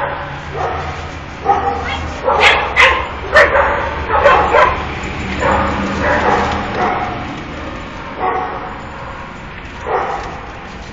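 Puppies yipping and barking in short, irregular bursts while playing together, with a cluster of sharp barks about two to five seconds in and a last one near the end.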